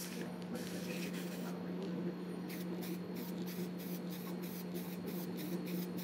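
Aerosol can of sealer in use, over a steady low hum: from about two and a half seconds in, short regular strokes come about three to four a second.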